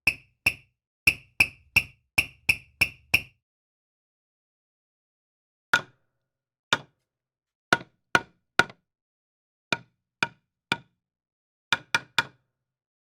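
A series of sharp knocks: about nine quick, higher-pitched strikes, then a pause of a couple of seconds, then a slower, uneven run of lower-pitched knocks.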